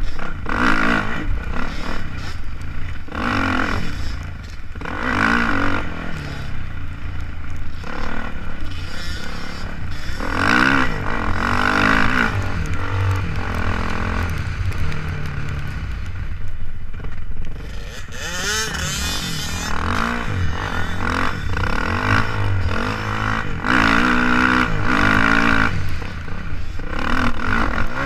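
Dirt bike engine revving hard, its pitch climbing and dropping again and again as the rider works through the gears, with a steady rumble of wind buffeting on the helmet camera's microphone.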